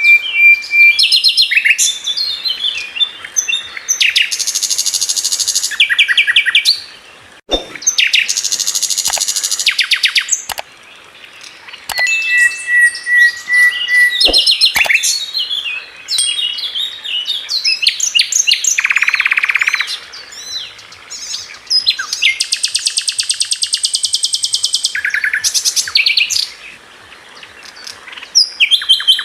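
Several songbirds singing and chirping continuously, with fast trills, rapidly repeated high notes and short whistled phrases.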